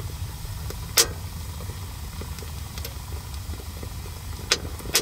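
Freshly lit wood fire burning in a small stainless-steel portable wood stove: a steady low rumble with sharp crackling pops, the loudest about a second in and two more near the end.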